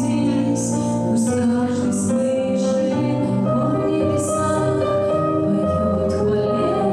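A woman singing a slow song into a hand-held microphone, with long held notes over instrumental accompaniment.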